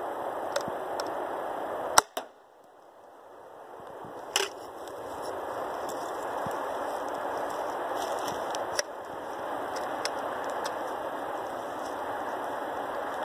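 A 3D-printed 37 mm launcher firing once about two seconds in: a single sharp bang. A second, fainter knock comes about two seconds later, over a steady background hiss.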